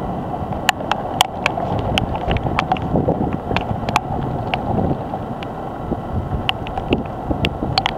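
Wind buffeting the microphone, a steady rushing noise, with irregular sharp ticks several times a second.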